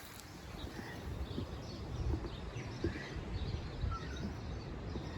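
Strong wind buffeting the microphone with a low rumble, and small birds chirping here and there.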